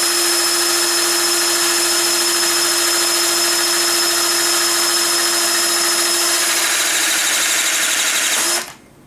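Battery-powered 18-volt hydraulic crimper running its electric pump motor in one steady whine for about eight and a half seconds. The tone turns wavering shortly before it cuts off suddenly.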